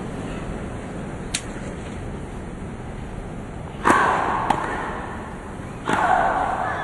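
Tennis rally on a grass court: a faint ball bounce, then a serve struck hard about four seconds in, a lighter return shot half a second later, and another hard groundstroke about six seconds in. Each hard strike is followed by a drawn-out grunt from the hitting player.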